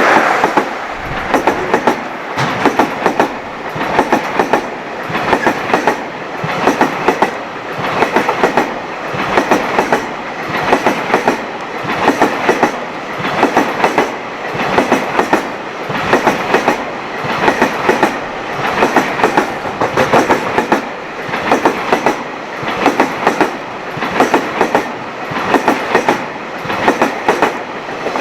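Container freight train's wagons rolling past over rail joints: a steady clickety-clack, paired wheel clatters repeating about once a second as the bogies at each pair of wagon ends cross the joint.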